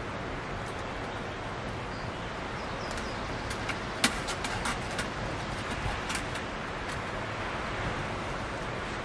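Kindling fire burning in a small folding metal wood stove: a steady rushing noise with scattered sharp crackles and pops. The pops come thickest around the middle, while air is blown into the flames through a blow tube.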